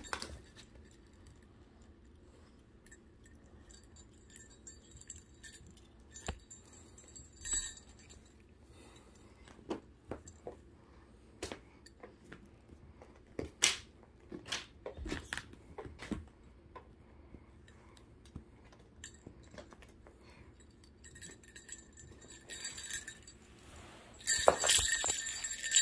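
Two kittens playing with a wand toy: scattered light taps and scuffs of paws and toy on mats and floor, a short high jingle about a third of the way in, and a louder burst of high, ringing jingling near the end.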